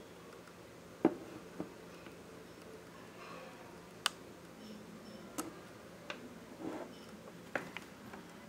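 A handful of light, sharp clicks and taps scattered irregularly over a steady low hiss, the loudest about a second in, typical of handling noise picked up by a handheld camera's built-in microphone.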